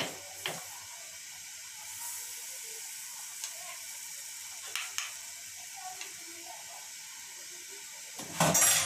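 Steady hiss of urad dal simmering and foaming in an aluminium pot on a gas burner, with a few light knocks of a wooden spatula and metal spoon against the pot. A louder clatter of about half a second comes near the end.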